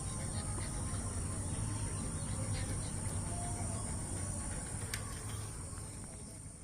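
Outdoor ambience: a steady high-pitched insect drone with a low rumble underneath and a few faint bird chirps, fading out near the end.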